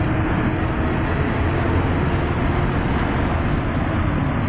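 Sinotruk Howo 6x4 dump truck's diesel engine and road noise, heard steadily from inside the cab while the truck is driving.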